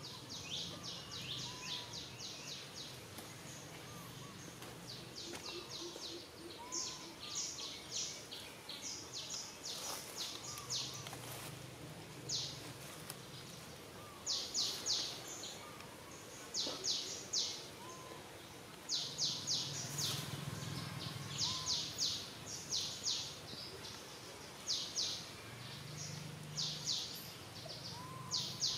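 Outdoor ambience of wild birds chirping: bursts of rapid, high chirps repeat every second or two, with short, softer calls lower down between them.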